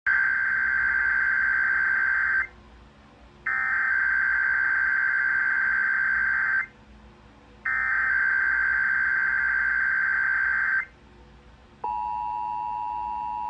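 Emergency Alert System SAME header: three identical screeching data bursts, each about three seconds long with a second's pause between them. They encode a Required Weekly Test covering many states. About twelve seconds in, the steady two-tone EAS attention signal begins.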